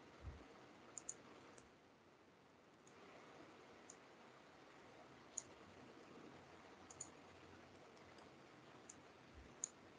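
Faint computer mouse clicks, scattered and irregular with a couple of quick double clicks, over near-silent room tone.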